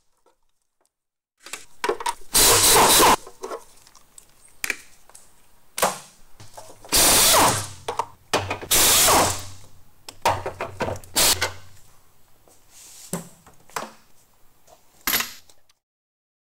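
A ratchet undoing the front engine mount nuts and studs, run in several loud bursts of about a second each, with clicks and knocks of the tool and metal parts in between. It stops shortly before the end.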